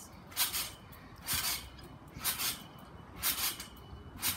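Someone bouncing on a trampoline: a short swishing rustle of the mat and springs about once a second, five times in all.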